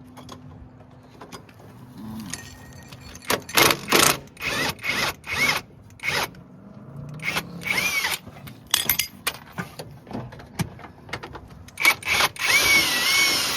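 Tools and metal parts clanking and knocking in a run of short, sharp strikes as the front suspension and drive axle are worked on. The strikes start about three seconds in and come thicker near the end.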